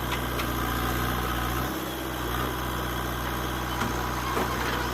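JCB 3DX backhoe loader's diesel engine running steadily at a constant speed.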